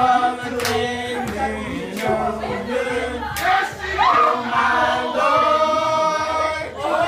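A small group of women singing a gospel song together without instruments, with long held notes and a few sharp hand claps.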